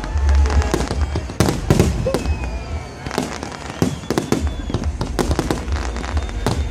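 Aerial fireworks bursting in quick, irregular succession, many sharp bangs over a continuous low rumble.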